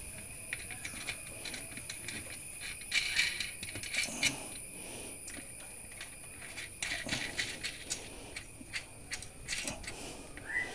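Light metallic clicks and rattles of axle nuts being threaded onto a bicycle wheel's hub axle by hand and snugged down, metal on metal, coming in a few short bunches.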